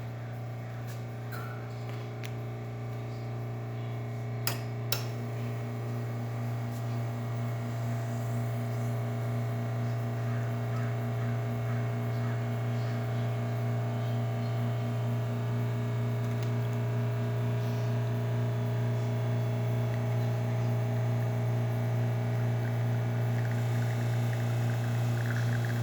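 Lelit Bianca espresso machine's rotary pump running steadily through a test shot, a low even hum that grows slightly louder over time. There are two sharp clicks about four and a half seconds in.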